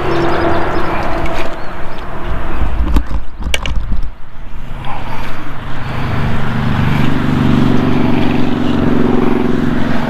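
A motor vehicle's engine running, its steady hum coming in from about halfway through over a rumbling outdoor background, with a couple of sharp clicks a little past three seconds in.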